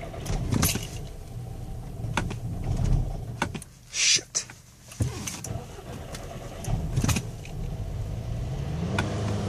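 2012 VW Eos's starter motor cranking the hot engine, which fails to start; the cranking stops and then resumes about five seconds in. Near the end the engine starts to catch and its speed rises. The hard start comes after the engine has been running 30 minutes and then shut off for 15.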